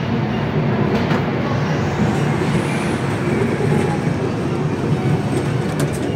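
Indian Railways 3rd AC coach running on the track just after the train pulls away from a halt: a steady rumble from the moving train.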